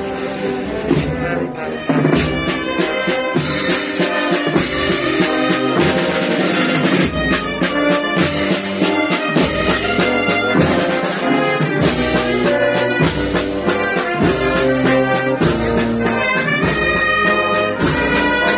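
A brass band with drums playing a processional march: trumpets, trombones and tubas over a steady drum beat, growing louder about two seconds in.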